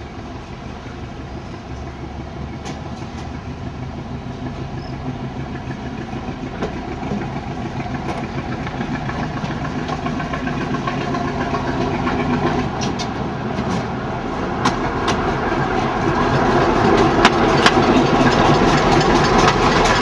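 Billard narrow-gauge diesel railcar approaching at low speed, its engine running with a steady note that grows steadily louder as it nears. In the second half come a series of sharp clicks from its wheels on the track.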